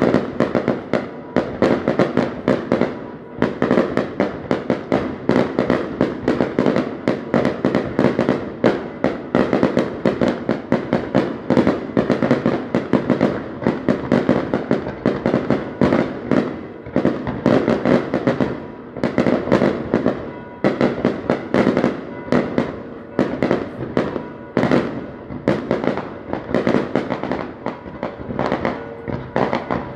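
Aerial fireworks display: an unbroken barrage of shell bursts, several bangs a second.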